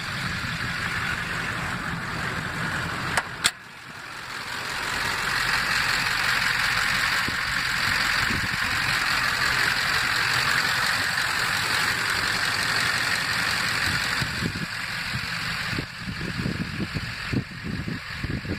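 A 6.6 L Duramax LBZ V8 turbo diesel idling steadily, louder from about four seconds in while heard over the open engine bay. There is a single sharp click a few seconds in.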